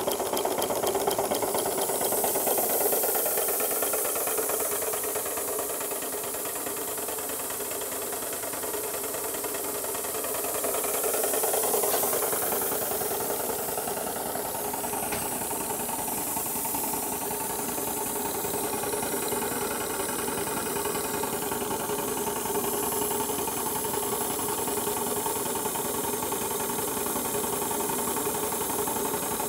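Aster live-steam model of a DB class 001 steam locomotive running: a steady hiss of steam with its running gear rattling. It grows louder briefly about twelve seconds in.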